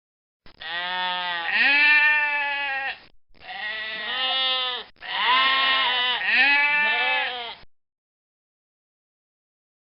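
Goat bleating: three or four long, wavering calls in quick succession, each bending up and down in pitch.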